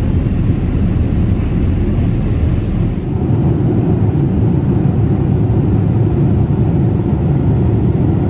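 Steady cabin noise of a Boeing 787 airliner in flight: a deep, even rush of airflow and engine noise. The lowest rumble drops a little about three seconds in.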